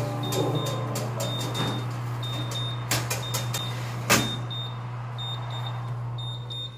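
Terracotta dishes going into an oven: clinks of the dishes and metal rack, with a sharp knock about four seconds in, over a steady hum from the running oven. The oven door swings shut near the end.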